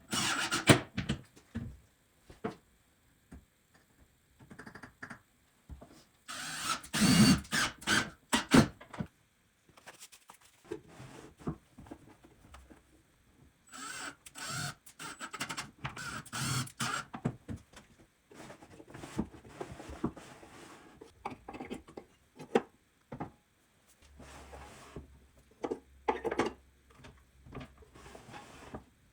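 Irregular knocks, clicks and rustling handling noise in scattered bursts, busiest about a quarter and again about half of the way through.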